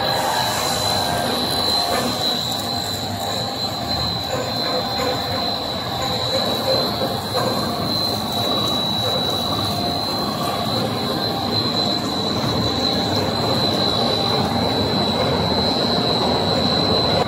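Core-filled pillow snack production line machinery running: steady mechanical noise with a constant high-pitched whine over it.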